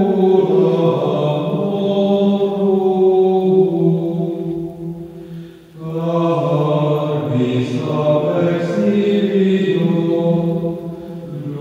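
Voices singing a slow chant in long held phrases, with a short pause about five and a half seconds in before the chant resumes.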